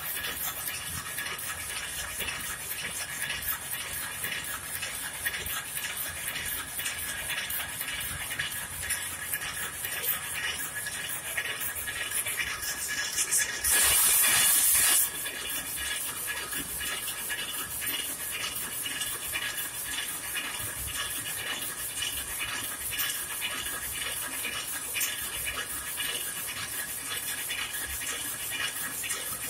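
Rapier looms running, a fast, steady mechanical clatter of the weaving strokes. A loud hiss lasting about a second and a half cuts in midway.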